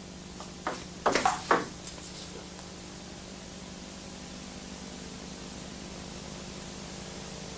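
Table tennis ball clicking off bats and the table as a serve is played and returned: about four sharp clicks close together within the first two seconds. After that only a steady hiss and hum.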